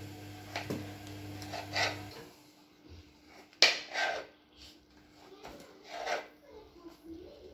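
Kitchen knife cutting carrot pieces on a wooden cutting board: a few slow, irregular chops, the sharpest a little past halfway. A steady low hum stops about two seconds in.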